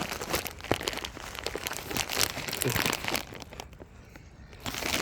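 Crinkling, crackling rustle of a bag of bird seed being handled. It dies down about three and a half seconds in and starts again near the end.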